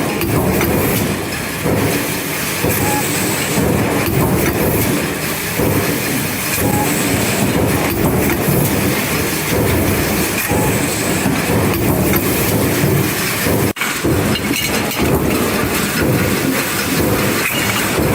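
Mechanical stamping press line running: 60-ton and 110-ton presses stroking on sheet metal, with the shuttle robots and belt conveyor moving parts between them. A steady loud industrial clatter with repeated knocks, broken by a brief dropout about three-quarters of the way through.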